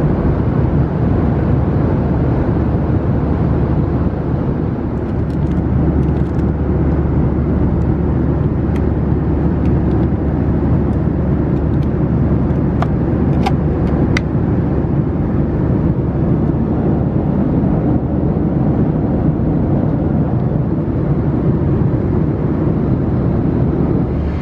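Steady in-flight cabin noise of a Boeing 737-700, a constant low drone of engines and airflow. A few sharp clicks come through between about five and fourteen seconds in.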